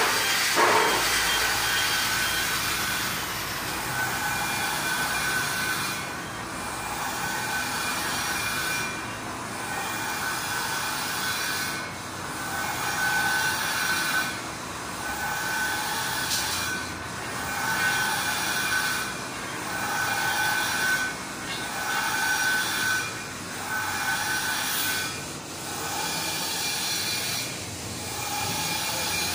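Workshop machinery running steadily, a noisy hum with a tone that swells and eases about every two seconds. A short falling sound comes about half a second in.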